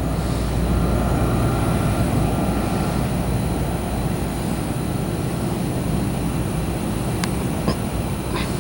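Steady low rumble of aircraft engines.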